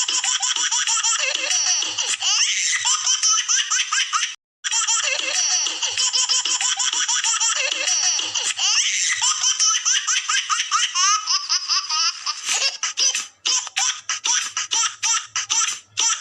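High-pitched laughter sound effect played in a loop, with rapid pulsing laughs; it cuts out briefly about four and a half seconds in and starts over.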